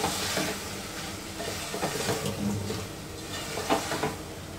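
Wooden spoon stirring cluster beans and prawns in a metal pot, scraping through the thick masala while it sizzles gently, with a couple of light knocks of the spoon against the pot near the end.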